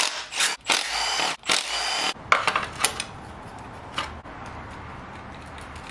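Cordless Milwaukee ratchet running in two bursts of about a second each, backing out the bolts that hold the fuel injector rail, followed by a few light clicks.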